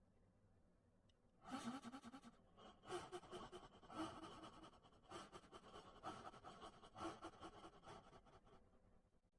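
Faint, breathy vocal sounds from a person in about six short bursts, starting about one and a half seconds in.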